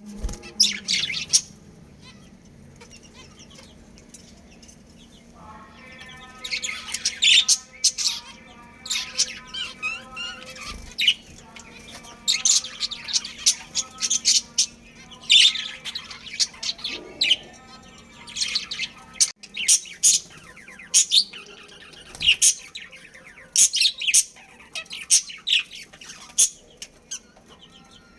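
Budgerigars chirping in many short, high-pitched bursts, with chattering warble between them, over a faint steady low hum.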